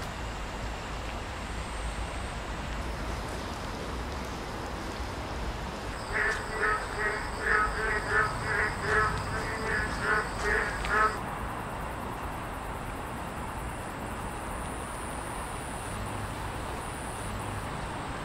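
A frog croaking in a quick run of about a dozen calls, starting about six seconds in and lasting some five seconds, over a steady hiss of rain.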